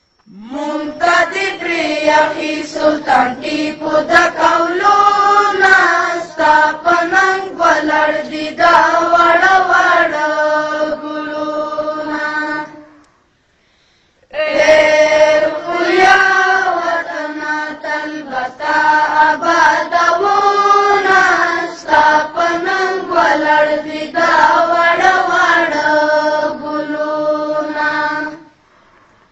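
Pashto patriotic song (milli naghma) being sung in two long melodic phrases, broken by a short silent pause about thirteen seconds in.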